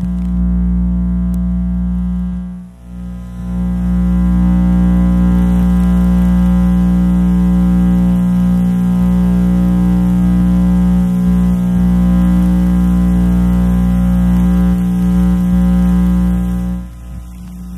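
Radio-frequency interference from an electrical or electronic device, picked up by an RFI probe: a loud, steady electrical buzz with many overtones. It dips briefly about three seconds in and falls away shortly before the end.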